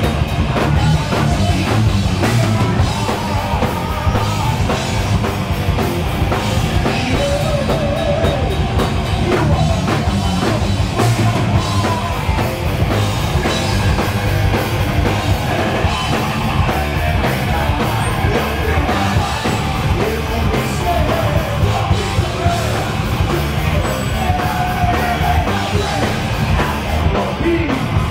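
Heavy metal band playing live at full volume: distorted electric guitars, bass and a pounding drum kit, with a singer's voice over the top.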